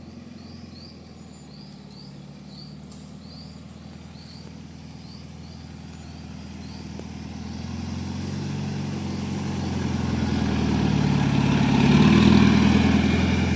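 2005 Ford Ranger's 2.8 Power Stroke diesel engine running under load as the pickup climbs in low-range four-wheel drive, growing steadily louder as it comes closer and loudest near the end.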